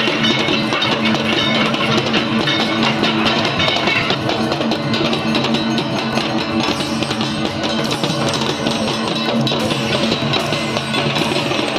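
Music with guitar and drums.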